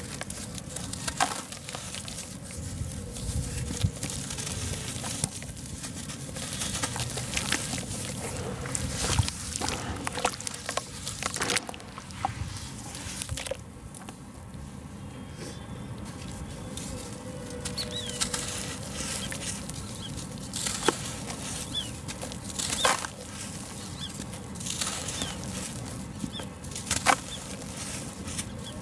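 Dry sand-and-cement blocks crushed by hand into a basin of water: gritty crumbling and crackling with splashes and patter as the pieces drop in. Around the middle the crackles give way to a quieter stretch of fingers swishing through the muddy water.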